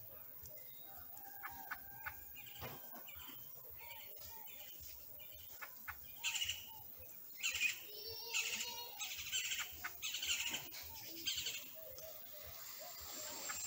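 Mockingbird nestling calling in a run of harsh, raspy chirps, loudest from about six seconds in for several seconds, with fainter chirps before.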